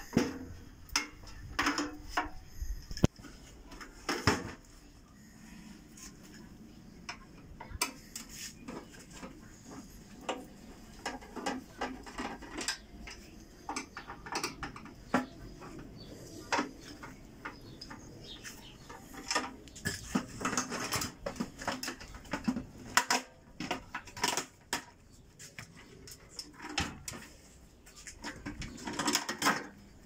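Irregular metallic clinks, knocks and rattles of a microwave oven's sheet-metal casing and internal parts being handled and pulled apart by hand. The clatter is busiest about two-thirds of the way through and again near the end.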